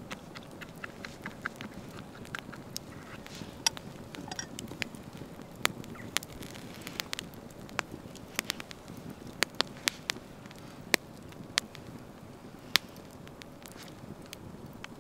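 Wood campfire crackling, with irregular sharp pops scattered over a steady low rush of background noise.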